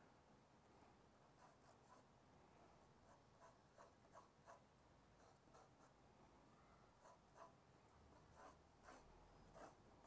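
Faint graphite pencil strokes on drawing paper: short, light, scratchy strokes at irregular intervals, with slightly louder ones near the end.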